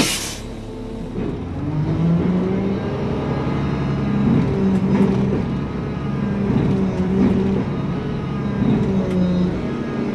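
Front-load garbage truck's diesel engine heard from inside the cab as the truck moves off, its note rising and falling several times as it picks up speed. A brief hiss right at the start.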